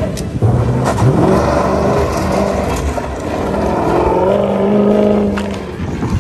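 SUV engine revving hard as the vehicle accelerates away on a dirt road. The pitch climbs in surges and falls away near the end.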